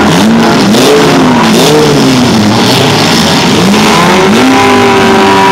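Several demolition derby cars' engines revving up and down at once, loud and overlapping, with a few short knocks in the first two seconds. From about four seconds in, one engine holds a steady high rev.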